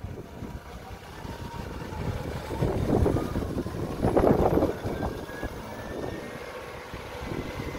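Mercedes-Benz W211 E220 CDI stretched limousine driving slowly past: the diesel engine running with tyre noise on brick paving, a faint whine rising gently in pitch as it pulls away, and two louder swells a few seconds in.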